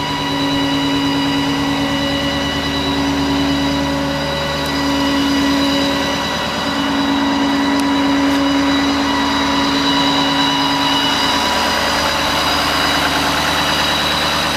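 2014 Ford F-550 utility truck's engine idling steadily, with a steady whine over the low running sound.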